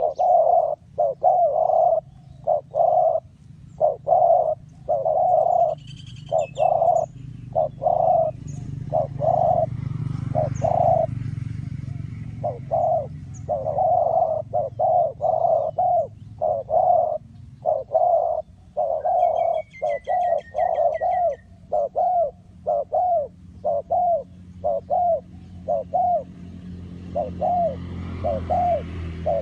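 Spotted doves cooing: a long, rhythmic run of short, low coo notes, about two a second. A few brief high chirps from another bird come in twice.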